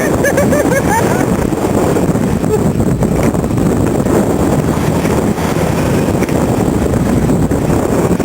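Suzuki Samurai off-roader driving, its engine running steadily under load, with wind buffeting the microphone.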